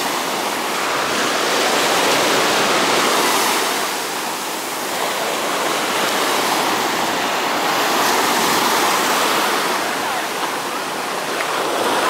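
Sea waves breaking and washing up a sandy beach, a steady rush of surf that swells and eases as the waves come in.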